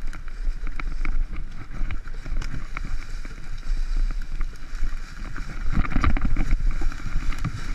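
Mountain bike descending a dirt forest trail: wind buffeting the microphone, tyres rumbling over the ground, and the bike clattering with scattered sharp clicks over bumps. It is loudest about six seconds in, over rough ground.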